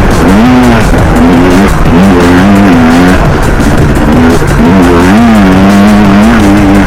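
Yamaha Banshee quad's two-stroke engine revving up and down repeatedly as it is ridden off-road, its pitch rising and falling several times.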